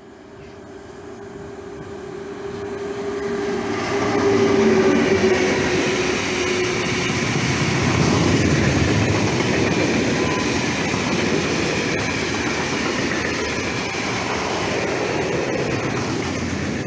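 A freight train of tarpaulin-covered steel-coil wagons passing close by. A steady hum comes from the locomotive as it approaches, and the sound peaks as it goes by about four to five seconds in. After that comes the continuous running noise of the wagons' wheels on the rails.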